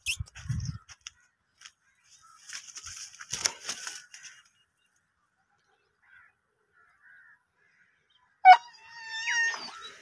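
A dog left tied up alone crying out: a sharp yelp about eight and a half seconds in, then a high, wavering whine lasting about a second, the distress of a dog that thinks its owner has gone. Earlier there is a short stretch of rustling.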